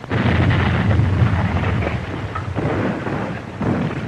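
Loud, low rumbling noise in surges, dipping briefly about two and a half and three and a half seconds in.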